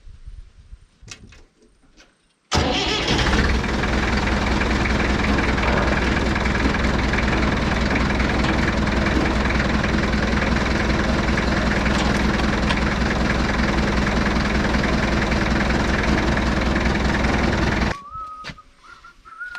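Tractor engine starting about two and a half seconds in and running steadily, then cutting off suddenly near the end.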